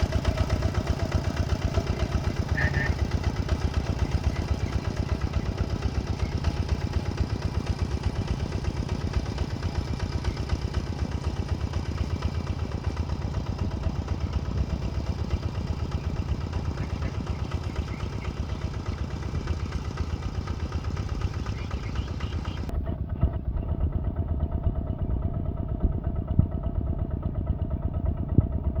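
Heavy machine's engine running steadily with a fast, even chugging, sounding duller for the last few seconds.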